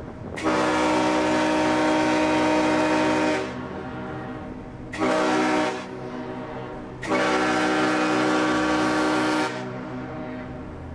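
Ship's horn sounding three blasts: a long one of about three seconds, a short one, then another long one. Each blast holds a steady pitch.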